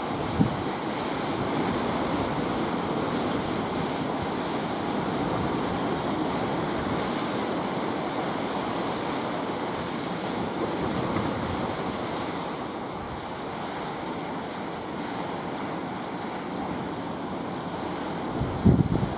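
Surf washing in steadily and breaking against a rocky shore, with wind on the microphone. A brief low thump comes about half a second in and a short cluster of louder low thumps near the end.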